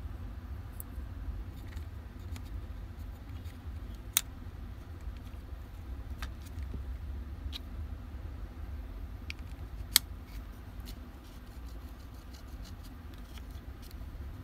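Scattered light clicks and taps of tools and small parts being handled, with two sharp clicks about four and ten seconds in, over a steady low rumble.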